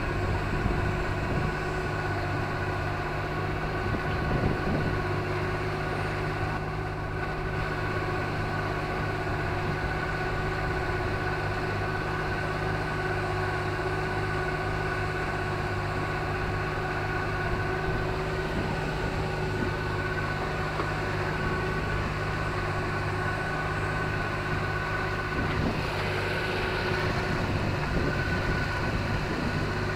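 Outboard motor of a MacGregor 26-X sailboat running under way at a steady speed, a constant drone with water rushing along the hull.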